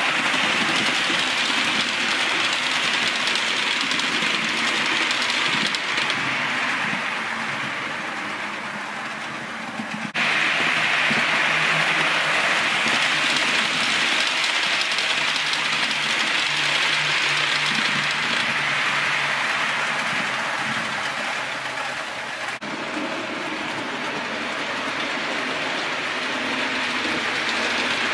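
4 mm scale model trains running along the layout track: a steady whirring rush of wheels and small electric motors. It fades a little and then cuts back in abruptly twice, about ten seconds in and again some twelve seconds later.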